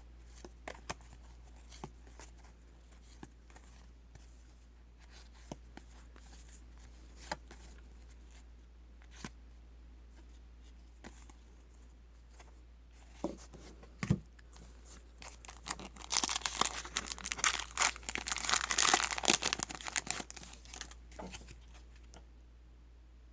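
Trading cards being handled with scattered light clicks and taps, a knock about fourteen seconds in, then a card pack's wrapper being torn open and crinkled for several seconds, the loudest part.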